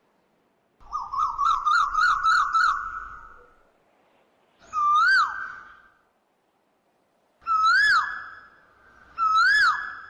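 High-pitched animal calls, each rising then falling in pitch: a quick warbling run of about seven notes about a second in, then three single calls a few seconds apart.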